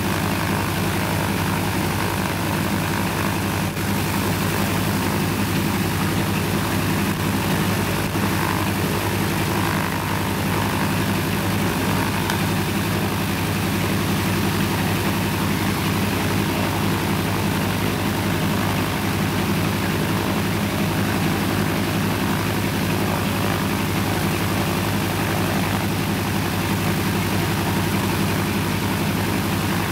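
Ilyushin Il-14T's Shvetsov ASh-82T radial piston engine and propeller running steadily on the ground during an engine run-up.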